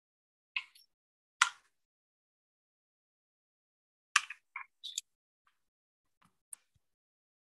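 Near silence broken by a few short, sharp sounds: one about half a second in, another at a second and a half, a quick cluster of three around four to five seconds, and a fainter one near six and a half seconds.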